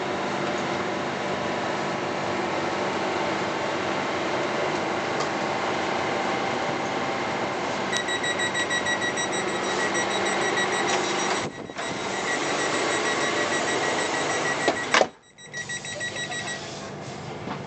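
Steady running noise inside an Airport Rail Link City Line train car. About halfway through, a rapid high electronic beeping from the door warning starts as the red light above the door comes on. A sharp knock sounds near the end, and the beeping stops shortly after.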